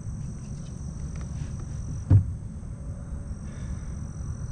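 Steady high-pitched insect drone, likely crickets, over a low rumble, with a few faint clicks and one sharp knock about two seconds in as a caught crappie is handled in a kayak.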